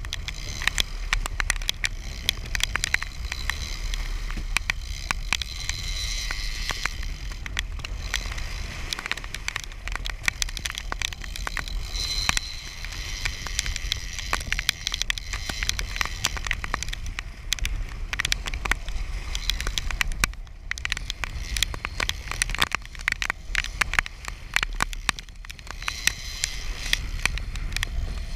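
Trolling reel being cranked while reeling in a hooked fish: a dense, rapid clicking from the reel that runs on with short pauses. A steady low rumble sits underneath.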